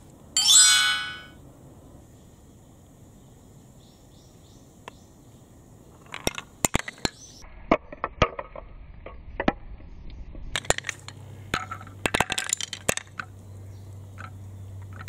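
Wooden marble run: marbles rolling and clacking against wooden track pieces and blocks, a scattered run of sharp clicks and knocks through the second half. About half a second in, a brief loud pitched sound that fades within a second stands out as the loudest thing.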